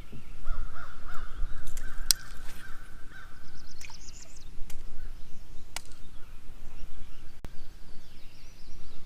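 Birds calling: a wavering call in the first few seconds, a quick run of high chirps about four seconds in, and fainter high calls near the end, over a steady low rumble. A few sharp clicks stand out among them.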